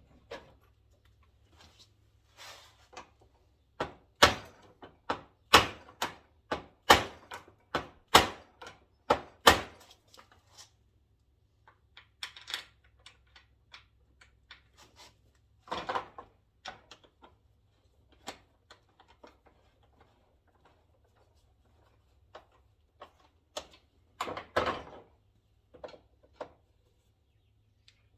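Workshop knocking: a run of about ten sharp, evenly spaced knocks, roughly one every two-thirds of a second, then scattered thunks and clatter.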